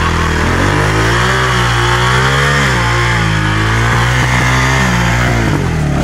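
Kawasaki dirt bike engine revving up about half a second in and held at high revs, its pitch wavering as the bike is worked up a rock step. It drops back toward idle near the end.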